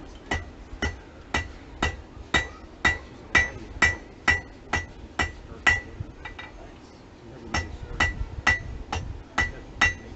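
Hand hammer striking a small piece of metal on an anvil, steady blows about two a second, each with a bright ringing note from the anvil. The hammering pauses briefly about six seconds in, then resumes at the same pace.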